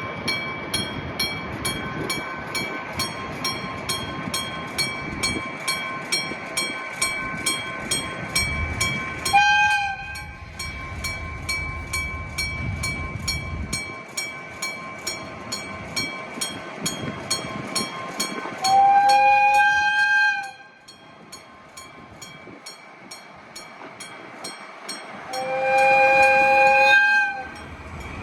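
Electric-bell (dengshō-type) level-crossing warning bell ringing with steady, evenly repeated strikes. Over it a freight train rumbles past and its horn sounds three times: one short blast about ten seconds in, then two longer blasts later on.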